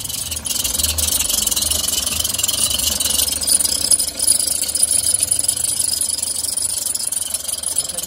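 Toyota Grandia van engine idling, heard close up at the front accessory belt drive: a steady low hum under a loud hiss-like whir.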